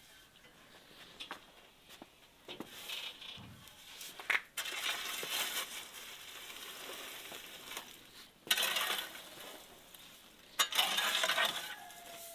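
A long-handled metal oven tool scraping embers and ash across the floor of a wood-fired brick oven. There are a few light knocks first, then three rough scraping bouts, the last two short and loud.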